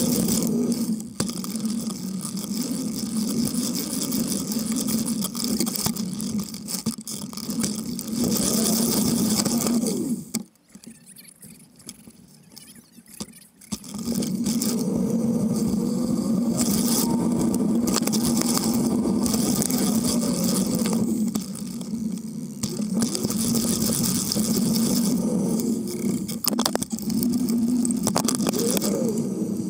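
Riding noise picked up by a camera mounted beside a bicycle's chainring: a steady rumble of tyres and drivetrain with hiss over it, which drops away for about three seconds near the middle and then returns.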